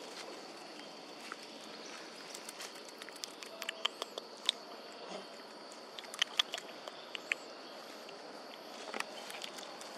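Steady outdoor insect drone, with a scattering of light clicks and rustles from macaques moving about in the grass close by, bunched between about two and a half and seven and a half seconds in.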